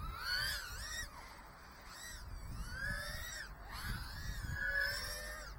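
Brushless motors of a 2-inch 2S micro FPV quadcopter whining, their pitch rising and falling in swoops of about a second as the throttle is worked, three or four times.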